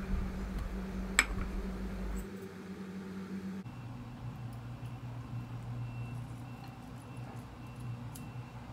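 A single sharp clink of crockery, like a serving dish or plate being set down, about a second in, over a low steady hum.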